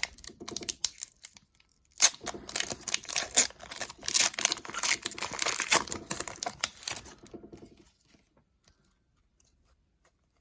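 Wrapper of a hockey card pack being torn open and crinkled, a dense crackling that is loudest from about two to seven seconds in and stops about eight seconds in.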